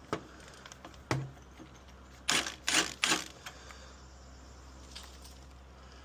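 Impact driver hammering in three short bursts, snugging screws down without fully cranking them. Two sharp clicks come before it, near the start and about a second in.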